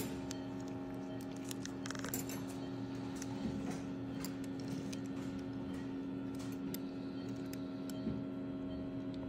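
A steady hum of several fixed tones, with faint scattered clicks of metal surgical instruments touching the teeth and braces.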